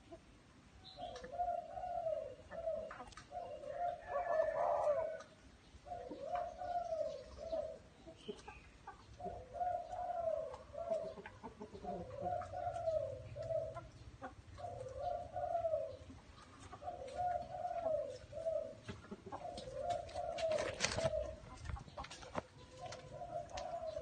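Spotted dove cooing its song: a low, repeated coo phrase roughly every one to two seconds, about a dozen times. A brief rustling clatter comes near the end.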